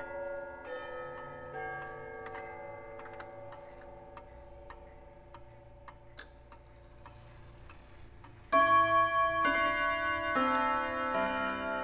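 Old Junghans pendulum wall clock: notes of its chime dying away over quiet ticking of the movement, then a loud chime melody starts about eight and a half seconds in, several notes struck one after another. The chime is set off by the minute hand being turned by hand to the quarter hour.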